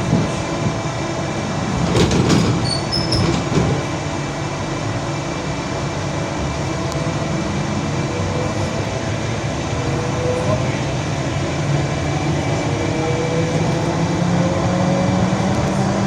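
ED4M electric multiple unit running on the line: steady rumble of wheels and running gear, with a cluster of louder knocks about two seconds in. In the second half a low traction-motor whine slowly rises in pitch as the train picks up speed.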